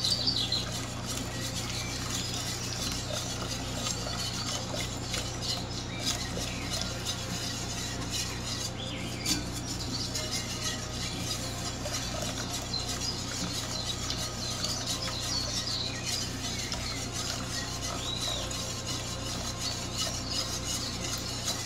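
Wire whisk beating a thin milk, flour and sugar mixture in a stainless steel saucepan: steady quick scraping and light clicking of the wires against the pan, over a steady low hum.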